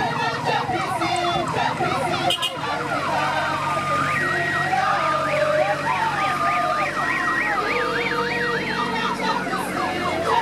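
Electronic vehicle siren, as fitted to an SUV with a roof light bar, cycling through fast rising-and-falling yelp sweeps. In the middle stretch it switches between a quick warble and a two-note hi-lo.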